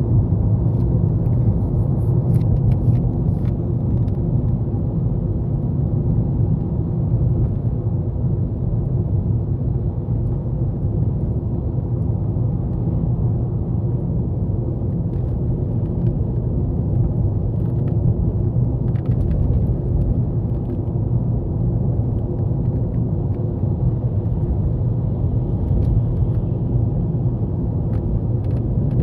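Steady low rumble of a Toyota Estima minivan heard from inside its cabin, with a few faint ticks over it.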